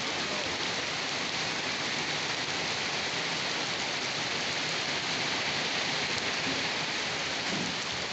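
Steady rain falling, an even hiss of many drops with no breaks.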